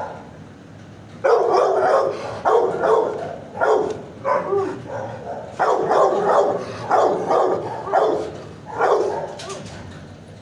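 Dog barking repeatedly in short clusters, starting about a second in and stopping near the end.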